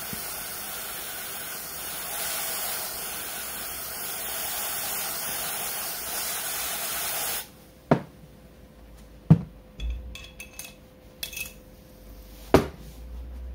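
Aerosol spray can discharging onto a crankshaft bearing in one long, steady hiss that cuts off suddenly after about seven seconds. Three sharp metal clanks and a few lighter clicks follow as pliers and the crankshaft are handled on the workbench.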